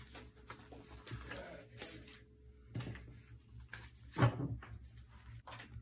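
Paper sticker sheets shuffled and rustling while a hand smooths a sticker down onto a journal cover, with scattered light knocks and one louder thump about four seconds in.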